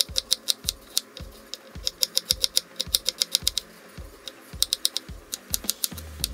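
Chef's knife chopping carrot on a plastic cutting board: quick runs of sharp taps, several a second, broken by short pauses as the carrot slices are cut into strips and small bits.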